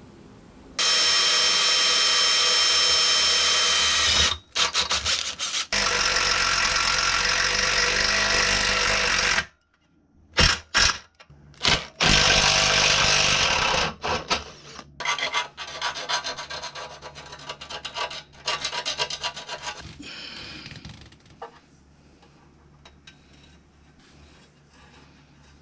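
Makita 18V cordless impact driver running in several bursts, two of them about three seconds long, with shorter stop-start bursts after. Much quieter handling sounds follow near the end.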